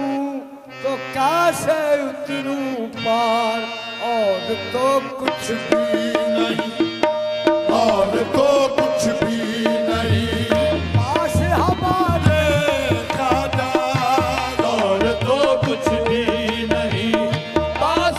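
Qawwali music: singing over held instrumental notes, accompanied by tabla-type hand drums that get fuller and heavier from about ten seconds in.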